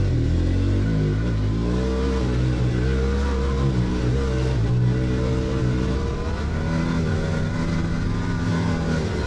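Vehicle engine running under way, its pitch stepping up and down as it pulls.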